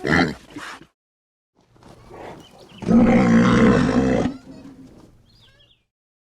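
A large animal's loud, deep roar, building up and loudest for about a second and a half about three seconds in, then tailing off. It is preceded by a few short grunts in the first second.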